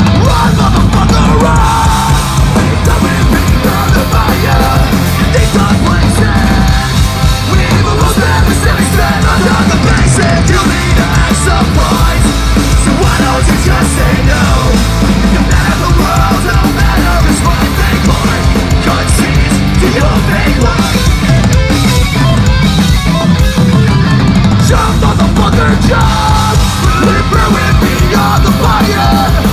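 Punk rock band playing loud and fast through a club PA: electric guitars, bass and drum kit, with yelled lead vocals over them.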